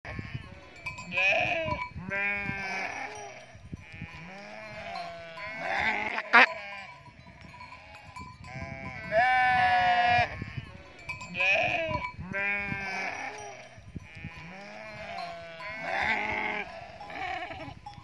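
Large flock of sheep and goats bleating, many wavering calls overlapping one after another, with one long, loud bleat about nine seconds in. A single sharp click about six seconds in.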